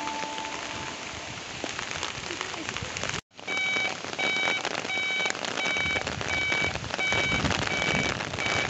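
Steady rain falling on the road and track. After a short break about three seconds in, a level-crossing warning beeper sounds a repeated high electronic beep, about three beeps every two seconds, over the rain while the boom barrier moves.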